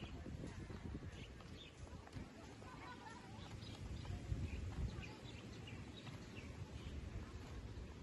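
Faint outdoor ambience: an uneven low rumble of wind and handling on the microphone, with faint scattered bird chirps.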